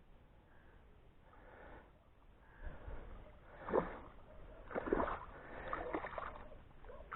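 Water splashing in a few short, irregular bursts, starting about two and a half seconds in, with the loudest splashes near four and five seconds in.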